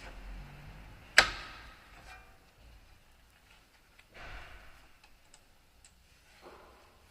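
A single sharp metal clank with a short ring about a second in, from tools or brake parts being handled during a rear brake pad job, followed by softer scraping and handling noises and a few faint ticks.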